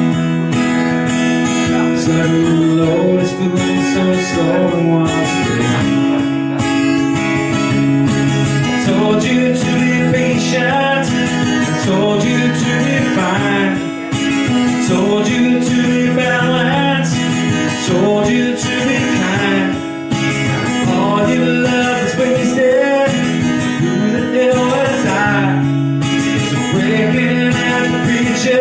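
Strummed acoustic guitar playing steady sustained chords, with a few wavering melody lines above them.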